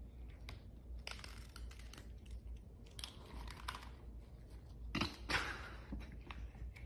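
Cats crunching dry kibble: a run of small, crisp crunches and clicks, loudest about five seconds in.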